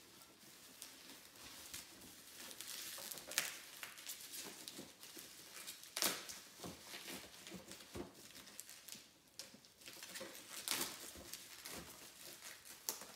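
Hands rummaging through a cardboard shipping box: plastic packaging and packing fill rustling and crinkling, with scattered sharp knocks and clicks of boxes being handled.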